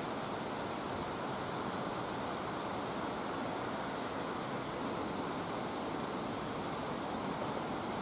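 Steady rush of the Ryuzu Falls cascade: falling water making an even hiss at a constant level.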